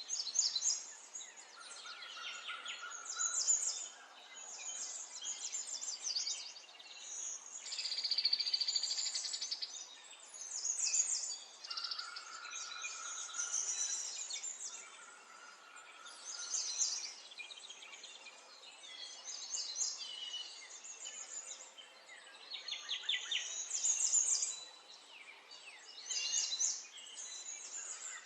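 Small birds chirping and singing in overlapping phrases. A rapid buzzy trill comes about eight seconds in, and a few steady, lower whistled notes come and go.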